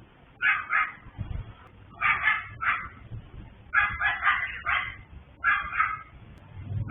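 Several small dogs barking in quick, sharp yaps, coming in clusters of a few barks with short pauses between.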